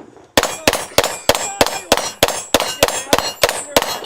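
Rapid gunfire on steel targets: sharp shots about three a second in an even rhythm, each hit ringing the steel plate with a metallic clang.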